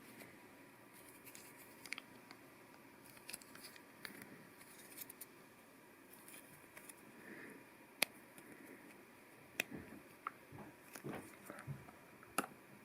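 Faint clicks and light rustling of LEGO Technic plastic parts being handled as pins are pushed into place. A few sharper clicks stand out, the loudest about eight seconds in.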